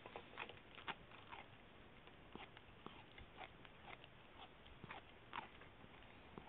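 Dachshund gnawing on a tough chew, its teeth making faint, irregular crunching clicks about twice a second.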